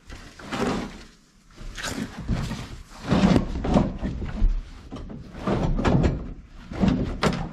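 Molded replacement car carpet being pushed and worked into place around the front floor and pedals: irregular rustling and scraping with knocks.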